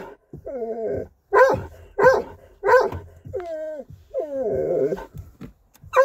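A pet dog barking and whining in turn: a whine, three short sharp barks about two-thirds of a second apart, then two longer whines that fall in pitch. The dog is worked up at the sight of a bear.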